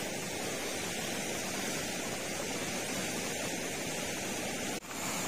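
Steady, even hissing rush of background noise with no distinct events. It drops out for a moment near the end.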